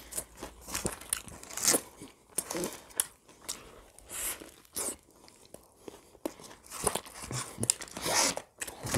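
Crunching and chewing of bites into a KFC fried chicken burger, in irregular short crackly strokes, with the paper wrapper crinkling as the burger is handled.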